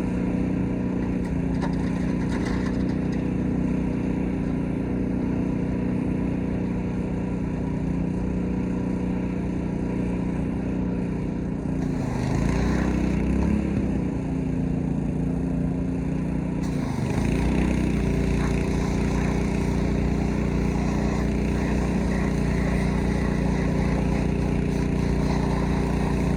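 Gas pressure washer's small engine running steadily, its pitch dipping and recovering twice a little after the middle.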